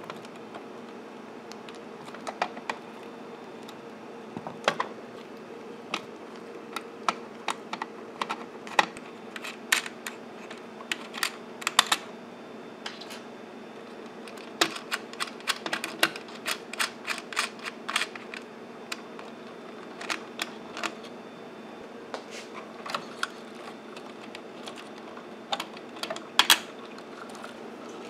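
Irregular small metallic clicks and taps, sometimes several in quick succession, as a socket tool and fingers loosen the nut on an amplifier's speaker binding post. A steady low hum runs underneath.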